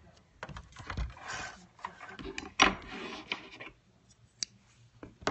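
Irregular mechanical clicks and clatter from a Janome Sew Mini sewing machine as it is handled and the stitched fabric is pulled out from under the presser foot, the loudest knock about two and a half seconds in. After that it is mostly quiet, with a couple of sharp ticks.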